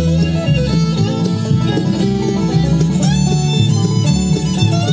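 Intempo Bluetooth speaker, repaired after water damage, playing music streamed from a phone: a fiddle-and-plucked-string tune in a bluegrass style, steady and fairly loud.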